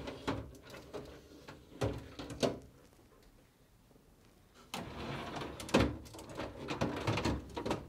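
Plastic crisper drawers of a Whirlpool French door refrigerator sliding out on their rails and clacking as they are tilted up and lifted free. One drawer comes out with a few clacks, then after a pause of about two seconds a second drawer slides and rattles out.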